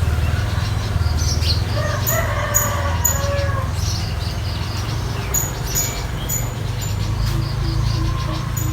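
A rooster crows once, starting about two seconds in, with small birds chirping over a steady low hum.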